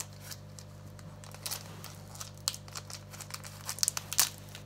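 Foil Pokémon booster pack wrapper crinkling and crackling in the hands as it is picked and torn open, in scattered small crackles, the loudest cluster about four seconds in.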